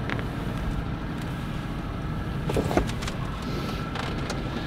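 Boat motor running at idle, a steady low rumble with a faint thin whine, and a couple of light knocks about two and a half seconds in as the boats are handled alongside each other.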